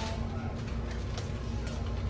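Fast-food restaurant room tone: a steady low hum with a few faint ticks.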